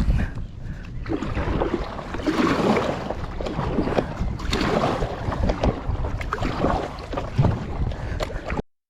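Kayak paddle strokes, the blades splashing and pulling through the sea in a swell about every two seconds, over a steady low rumble of wind on the microphone. The sound cuts off suddenly near the end.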